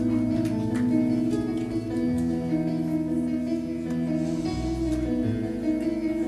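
Live worship band playing a slow instrumental song intro: guitar over held, sustained chords.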